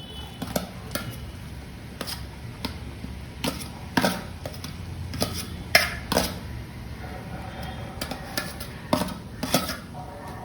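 A cooking utensil clinking, knocking and scraping against a pan at irregular intervals as chopped onions are tipped into butter and oil and stirred.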